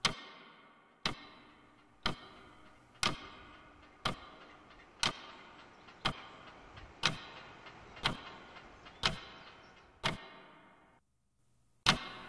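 Wall clock ticking about once a second, each tick loud with a long echoing tail. The ticking breaks off near the end, then comes one louder tick.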